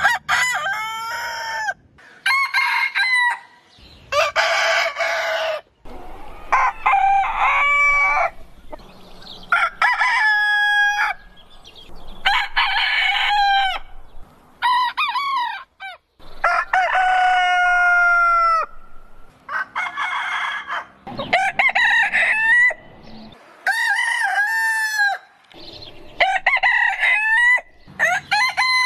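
Roosters crowing one after another, more than a dozen cock-a-doodle-doo crows of different pitch, each a second or two long, with abrupt cuts between them.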